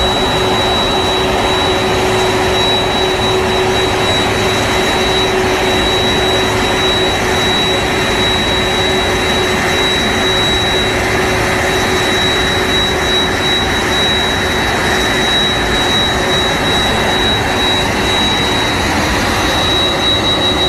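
Boeing 767-300F freighter's twin jet engines running as it taxis in at low speed: a steady jet rush with a high whine held on one pitch and a lower steady hum beneath it.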